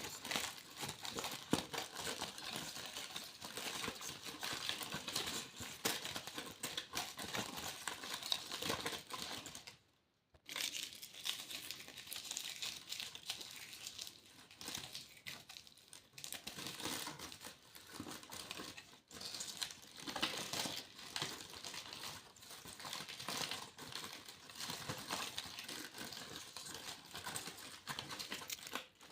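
Foil being crinkled and crumpled by hand, a dense run of close crackles, with a short pause about ten seconds in.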